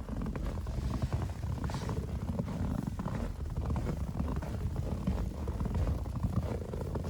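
Footsteps crunching through fresh powdery snow at a walking pace, over a steady low rumble of wind on the microphone.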